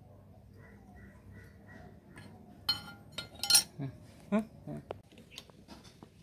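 Metal tools and parts clinking together in a run of sharp strikes, some with a brief ring, the loudest about three and a half seconds in.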